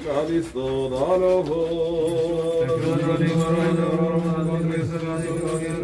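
Men's voices chanting an Orthodox liturgical hymn, long held notes that step slowly in pitch.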